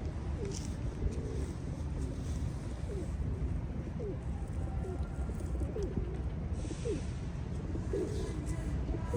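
Pigeons cooing, a run of short low calls one after another, over a steady low background rumble.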